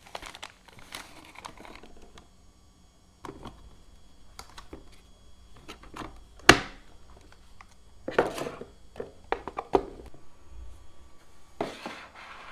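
Objects being handled by hand: scattered clicks, taps and short rustles, with one sharp knock about six and a half seconds in.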